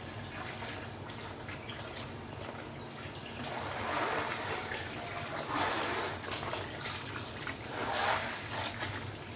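Water running from a garden hose into a plastic basin and splashing, swelling louder a few times.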